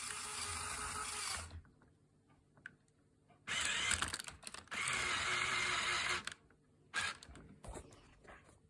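Lego L motor driving a worm gear on a toy fire-truck ladder, running in three bursts of about a second each with a clicking, grinding gear noise, followed by a few short clicks near the end.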